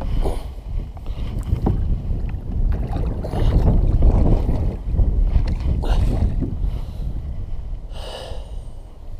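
Kayak paddle strokes splashing and dipping into the water in a series of strokes, under a steady rumble of wind on the microphone.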